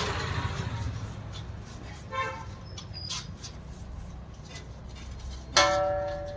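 A vehicle horn beeping: a short beep about two seconds in, then a louder, longer one near the end that fades away. Both play over a low, steady rumble.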